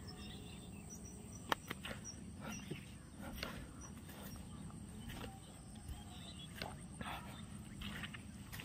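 Footsteps swishing through tall grass at an irregular walking pace, with faint bird calls and insects in the background.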